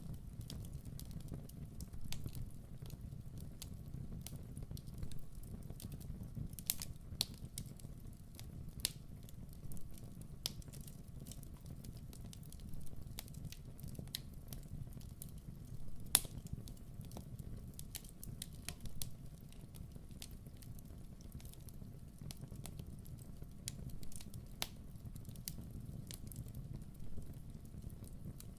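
Fire burning in a fireplace: a low steady rumble of flames with frequent sharp crackles and pops, one louder pop about sixteen seconds in.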